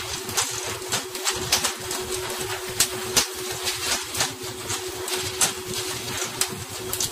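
Pole-and-line tuna fishing boat: a steady engine hum and the hiss of water, with sharp, irregular clacks and slaps several times a second as tuna are swung aboard on the poles and land on the deck.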